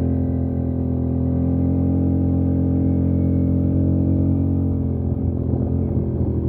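ATV engine running at steady revs under way, then its pitch eases down about four and a half seconds in as the quad slows.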